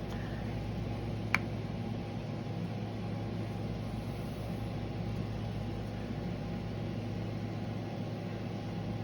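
A steady low machine hum, with one small sharp click about a second and a half in.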